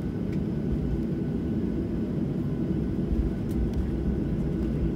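Boeing 737-700's CFM56-7B engines running at taxi power, heard from inside the cabin as a steady low rumble while the jet taxis.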